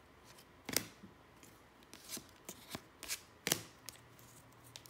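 1991 Stadium Club baseball cards being flipped through by hand, each card slid off the front of the stack with a short, sharp flick. Several flicks, the loudest about a second in and again past the middle.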